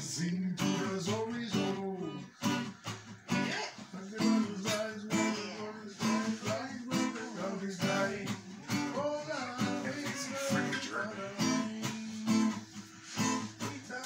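Acoustic guitar being strummed and picked.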